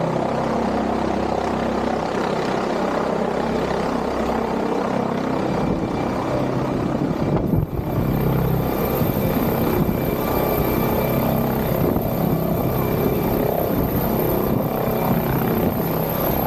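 Helicopter flying low overhead: a steady, loud drone from its rotor and engine.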